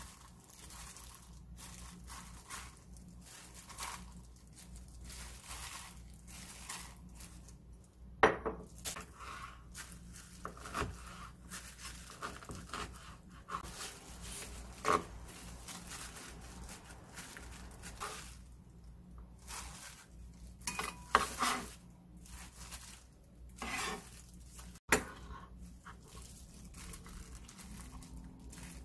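Kitchen knife chopping boiled dried radish greens on a plastic cutting board, with irregular knocks and the clink of bowls handled on the counter; the sharpest knocks come about 8, 21 and 25 seconds in.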